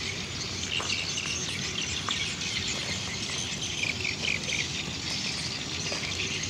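Outdoor ambience of birds chirping and insects trilling in a steady chorus of many short high chirps, with a couple of faint ticks.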